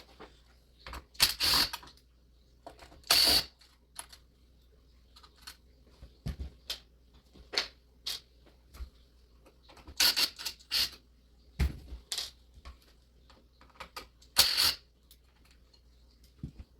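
Irregular sharp clicks and a few short clattering rattles of small hard computer-build parts being handled and taken off the board to make way for the CPU cooler mount.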